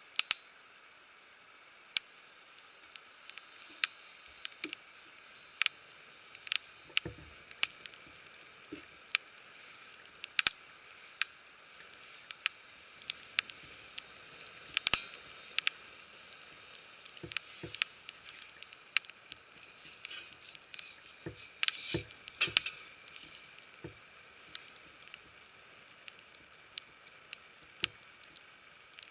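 Wood fire crackling, with irregular sharp pops and snaps over a low hiss and a few denser runs of crackles.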